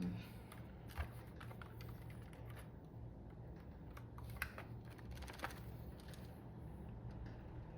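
Irregular light clicks and taps of plastic on a mechanical keyboard, with a few sharper clicks standing out about a second in and again around the middle, over a faint low hum.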